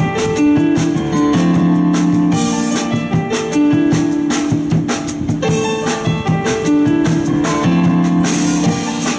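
Live band playing: drum kit with regular strikes, guitar and bass under a melody of long held notes that change pitch about once a second.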